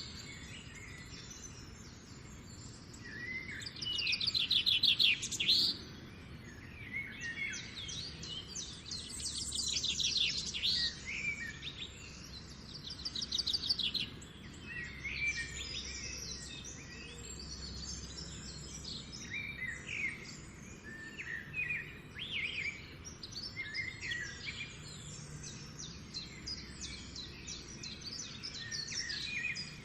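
Several birds singing and calling together in a morning chorus of overlapping chirps and fast trills, with louder trilled phrases a few seconds in and again around ten and thirteen seconds in.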